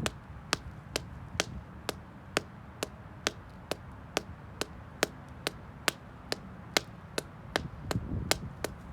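Black slingback shoe tapping on concrete in a steady rhythm, sharp clicks about two a second.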